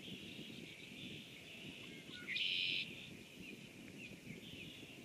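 Birds calling steadily in rain, over a low rough patter, with one loud, buzzy trilled call lasting about half a second halfway through.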